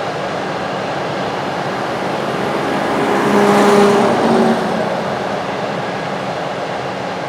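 A farm vehicle driving past close by: steady machine noise swells to a peak with an engine hum between about three and four and a half seconds in, then fades back.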